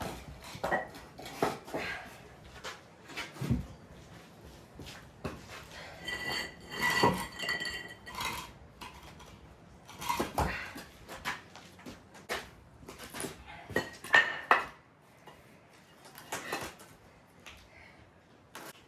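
A string of irregular knocks and clinks from hand tools, metal hardware and timber being handled. About six to eight seconds in, a piece of metal rings out with a clear tone.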